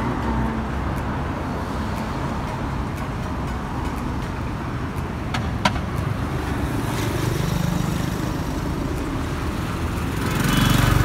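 Steady road traffic of cars passing on a city street, with a louder vehicle going by about seven seconds in. Near the end a small motorcycle's engine grows loud as it comes by close.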